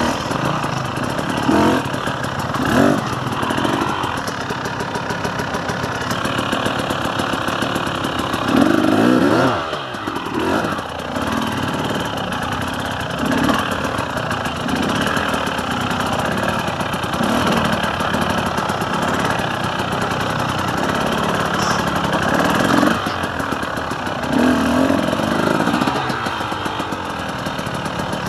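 KTM 300 EXC's two-stroke single-cylinder engine running under constantly changing throttle, with repeated short bursts of revs between steadier running. It drops off briefly about ten seconds in, then picks up again.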